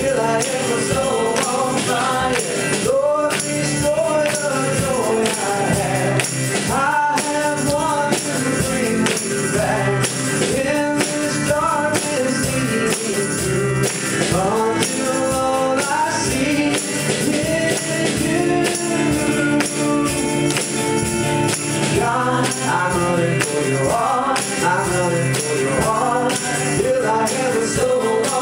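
Live Pentecostal worship music: a woman singing lead over acoustic guitar and a drum kit, with a steady beat.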